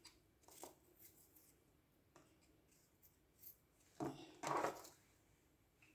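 Faint knife work on fresh ginger root: a few small scrapes and clicks, then a louder scraping-cutting sound about four seconds in.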